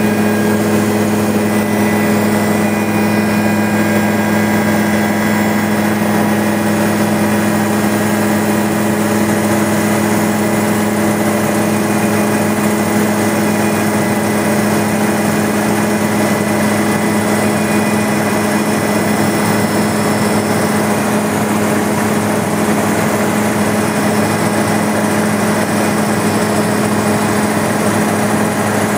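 Helicopter engine and rotor running steadily in flight, heard inside the cabin as a loud, even drone with a steady hum and a fainter high whine.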